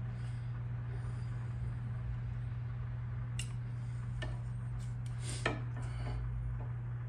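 A few small metallic clicks and clinks of hand tools being handled while working a wire end and its connector, the loudest about five and a half seconds in, over a steady low hum.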